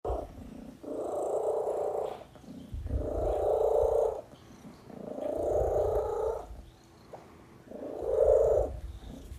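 Domestic cat purring loudly while its chest and chin are rubbed, the purr swelling in four long breaths with short pauses between.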